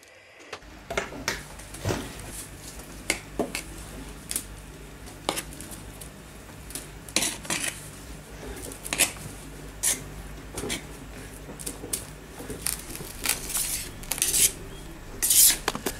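A spoon stirring dry flour in a metal bowl: irregular clinks and scrapes of metal on metal, with a few longer scraping rustles near the middle and the end.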